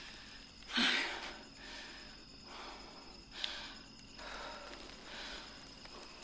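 A person breathing audibly: one sharp, noisy breath about a second in, then a run of softer breaths or sighs roughly once a second.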